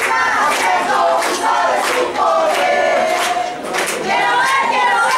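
Many voices shouting and cheering together during an American football play, overlapping yells from players and fans along the sideline.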